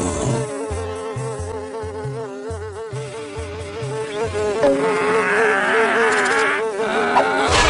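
Cartoon fly buzzing sound effect: a wavering drone that carries on throughout and turns louder and harsher about two-thirds in as the fly comes close. A low pulsing beat runs underneath for roughly the first half.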